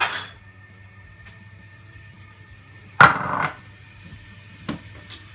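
Knock and clatter of vegetables and a knife being handled on a plastic cutting board, loudest in a double knock about three seconds in, with a short sharp sound at the very start and a faint steady hum underneath.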